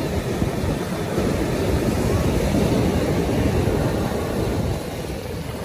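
Sea surf: high waves breaking and washing up the sand in a steady rush, swelling a little in the middle and easing off near the end.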